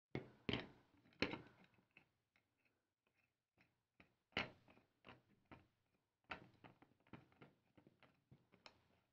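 Small clicks, taps and knocks of nuts and washers being handled and fitted onto the threaded rods of a wooden altimeter-bay sled. A few louder knocks come in the first half, then a quick run of small ticks.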